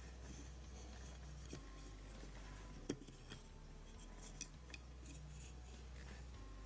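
A few light clicks and taps as long acrylic fingernails handle a small diecast model car on a wooden tabletop, the sharpest click about three seconds in. A faint low hum lies underneath.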